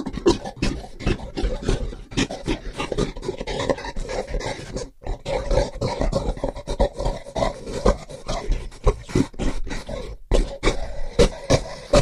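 Gorilla sound effect: a rapid, uneven run of short, loud animal sounds, with brief breaks about five and ten seconds in.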